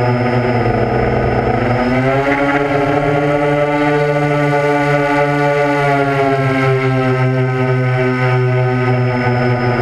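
Motor and propeller noise of the camera-carrying chase aircraft, heard from on board: a loud, steady hum whose pitch rises about two seconds in and eases back down around six to seven seconds as the throttle changes.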